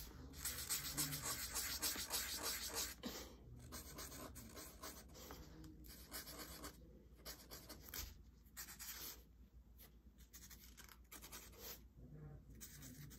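Felt-tip marker scratching on paper in quick short strokes, colouring in small circles, louder in the first few seconds.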